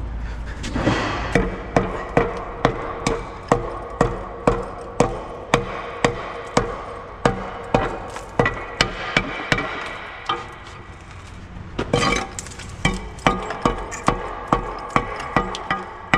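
Hand hammer knocking hardened concrete buildup off the steel underside of a Putzmeister concrete pump's hopper: steady blows about every half second, each with a short metallic ring. The blows pause briefly near the end, with a short clatter, then come quicker.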